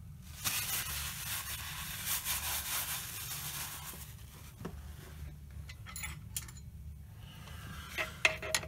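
Rubbing and scraping handling noise at a Weiler Praktikant lathe's split belt pulley for a few seconds, then scattered light clicks. Near the end come metal clinks with a short ring as a tool is set against the pulley. A low steady hum runs underneath.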